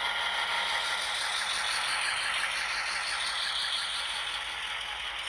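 Model diesel locomotive under way: its ESU DCC sound decoder plays a diesel engine running sound through the small onboard speaker, a steady rattling, thin sound.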